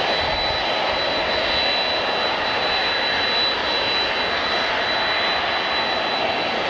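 Airliner engines running steadily: a broad, even rushing noise with a thin, steady high whine over it.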